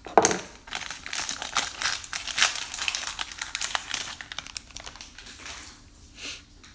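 Plastic cello-pack wrapper of a trading-card pack being torn open and peeled back by hand: dense, rapid crinkling and crackling for about four and a half seconds, then thinning out, with one more brief rustle near the end.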